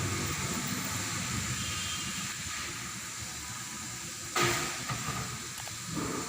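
Steady hiss of water being heated in a thermostat test, with a brief clatter about four and a half seconds in.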